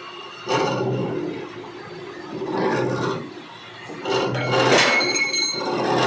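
Milling machine converted to CNC running production cuts: a loud, noisy cutting sound over a steady hum, coming in four bursts about every one and a half to two seconds.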